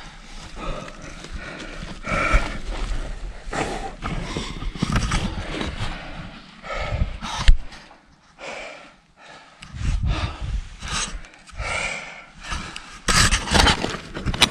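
A person breathing hard in irregular gusts while climbing out of a rock hole up a ladder, mixed with scuffs and rustles of clothing, rope and strap against rock, busier and louder near the end.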